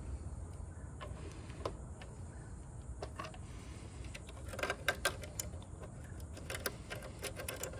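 Electrical wires being pushed and pulled through a knockout in a plastic enclosure by hand: scattered light clicks and rustles, busiest about halfway through and again near the end, over a low steady rumble.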